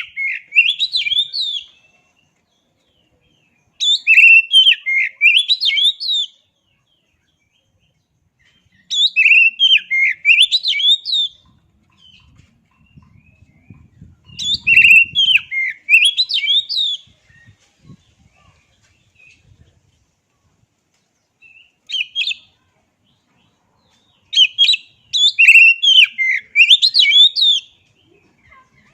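Oriental magpie-robin (kacer) singing in loud bursts of quick, high, rising and falling whistled notes. Each burst lasts about two to four seconds, with pauses of a few seconds between them, about six bursts in all. One burst, a bit past two-thirds of the way through, is short.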